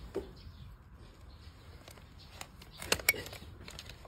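Metal hoof-trimming tool clicking and knocking against a donkey's overgrown hoof: a couple of sharp clicks at first, then a louder cluster of knocks about three seconds in.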